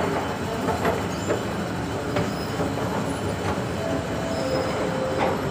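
Electric MTR East Rail line train running at the platform below: a steady rail rumble with scattered clicks, and near the end a whine that steps down in pitch twice as the train slows.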